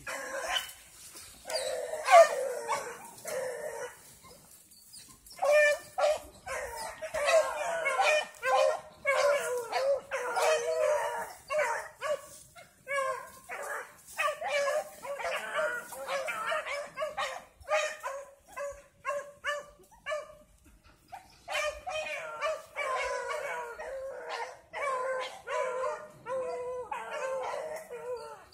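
A pack of hounds baying and howling on a trail, several voices overlapping in long bouts. There are short lulls about four seconds in and again around twenty seconds in.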